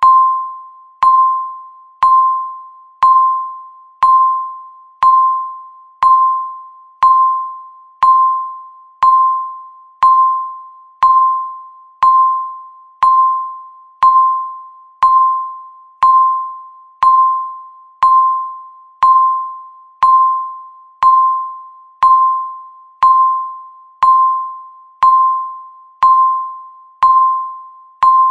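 Countdown timer's tick sound: a short bell-like tick once every second, each with a sharp start that rings out and fades until the next, in a steady, unchanging rhythm.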